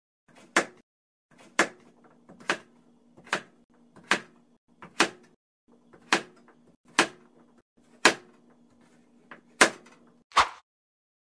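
Kitchen knife chopping a bar of milk chocolate on a bamboo cutting board: about eleven sharp knocks, roughly one a second, as the blade goes through the chocolate and strikes the board.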